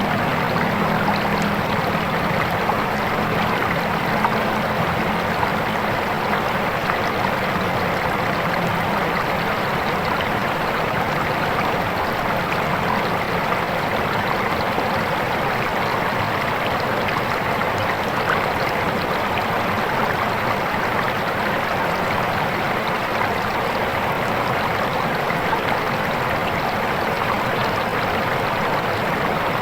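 Fast-flowing clear river rushing over rocks: a steady, even rush of water.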